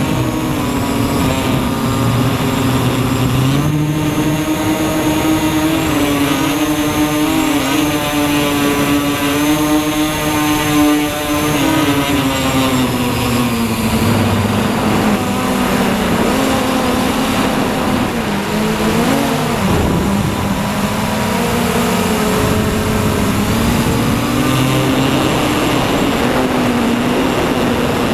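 MJX Bugs 3 quadcopter's brushless motors and propellers whining in flight. The pitch drifts up and down as the throttle changes, dipping briefly about twenty seconds in.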